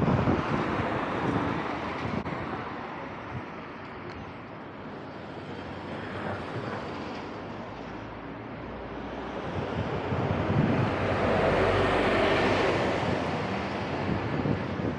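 Street traffic noise with wind buffeting the microphone, swelling louder at the start and again from about ten to thirteen seconds in.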